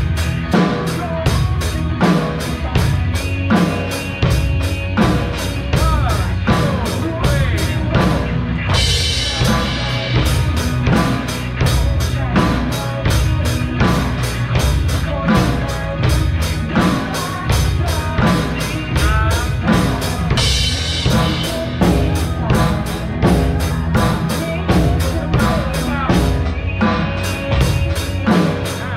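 Drum kit played along to a pop-rock backing track with a sung melody, in a steady beat, with cymbal crashes about nine seconds in and again about twenty seconds in.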